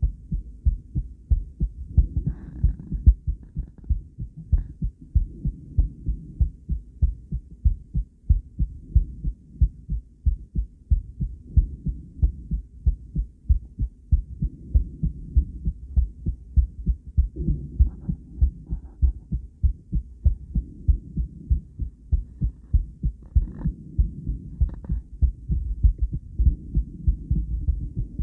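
A woman's heartbeat, beating in a steady, even rhythm.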